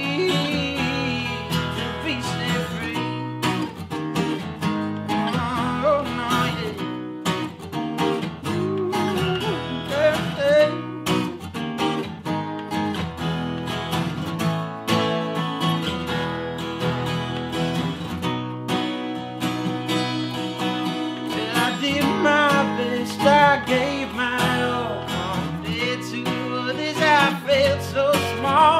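Two acoustic guitars playing an instrumental break: strummed chords under a picked lead melody with bending notes.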